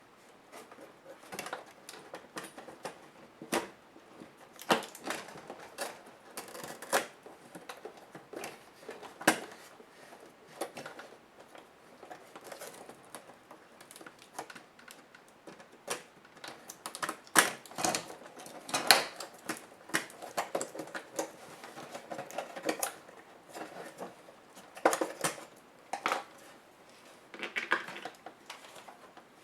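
Irregular clicks, taps and light knocks of a laptop's hard plastic casing and small parts being handled and pried apart by hand, with a few louder knocks in the middle and near the end.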